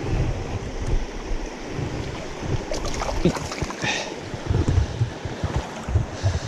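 Mountain stream running, with low rumbling wind buffeting on the microphone and a few short sharp clicks about three seconds in.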